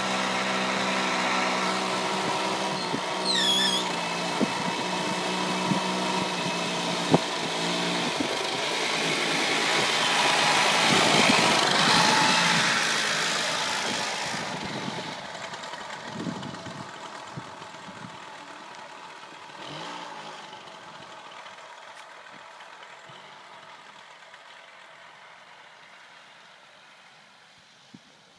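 Go-kart's small petrol engine running as the kart pulls away, the engine note swelling and then fading gradually as it drives off into the distance.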